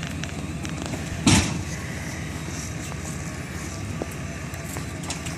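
A vehicle engine running steadily at a low, even pitch while a shed on a trailer is moved, with one loud bang about a second in.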